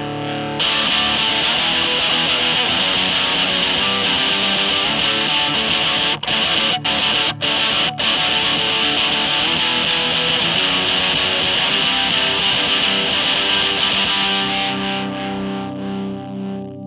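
Electric guitar with a Seymour Duncan JB humbucker played through a Burning Sun fuzz pedal, a clone of the Devi Ever Ruby (a modified Tone Bender), into a Fender Supersonic amp, with the guitar's volume rolled back. It plays sustained, fuzzy chords that break off briefly four times around the middle and thin out near the end.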